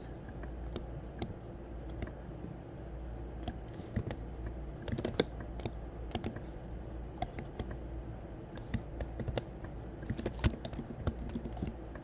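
Computer keyboard and mouse clicks: irregular sharp taps, single and in small quick flurries, from someone working a graphics editor, over a low steady hum.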